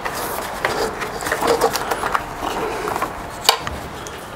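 Hand tools and metal parts being worked in an engine bay while bolting an air-compressor mount in: scattered clicks, knocks and rustling, with one sharp click about three and a half seconds in.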